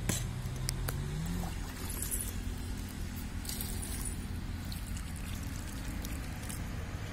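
Water poured from a steel bowl onto dry soil around a freshly transplanted chili seedling, splashing and trickling into the hollow at its base. This is the small first watering that lets the roots take hold. A few light clicks come near the start, over a steady low hum.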